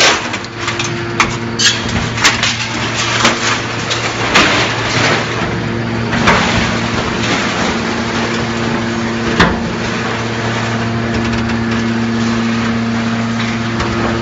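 Y81F-4000 hydraulic metal baler running with a steady hum while scrap metal is crushed into a block, giving sharp cracks and crunches, most of them in the first half, with a last loud crack about two-thirds through.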